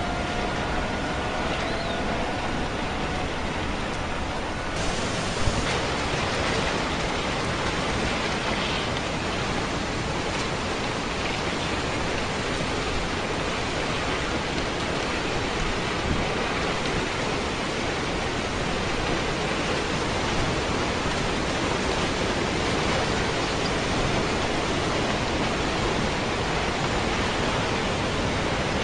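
Steady rushing of floodwater surging through a town and carrying debris. The rush becomes brighter and fuller about five seconds in.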